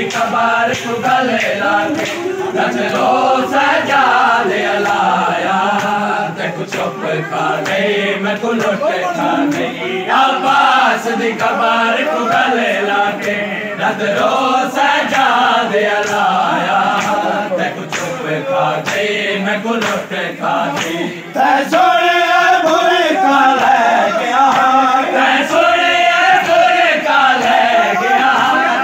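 A crowd of men chanting a nauha (Shia mourning lament) together, with sharp slaps of hands on bare chests (matam) running through the chanting. The chanting grows louder about three quarters of the way through.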